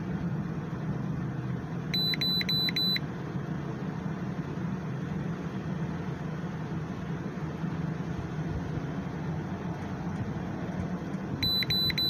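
Electronic beeps: four quick high-pitched beeps about two seconds in and four more near the end, over a steady low hum.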